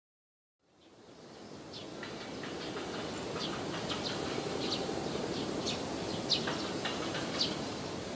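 Birds chirping in short, high repeated calls over a steady low rumble of background noise, fading in after a moment of silence.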